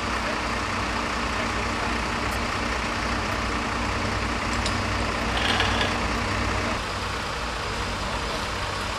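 Fire truck engine running steadily, with a brief hiss about two-thirds of the way through.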